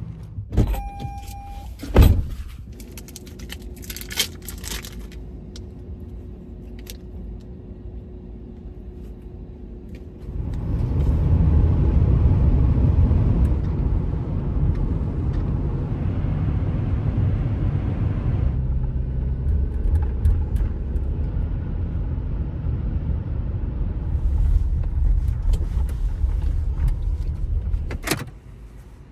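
Inside a car: door and key clicks and a short steady tone, then a quiet stretch. About ten seconds in, a loud low rumble of engine and road noise starts suddenly as the car drives off, and lasts until a sharp click near the end.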